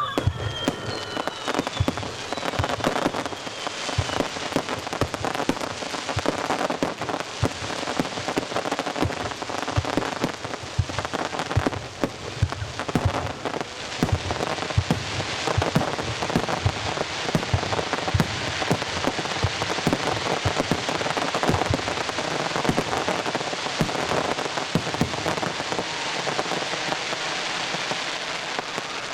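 Fireworks display: a dense crackle of many small bursts, like heavy rain, with deeper bangs mixed in. A falling whistle sounds right at the start, and the crackle thins a little near the end.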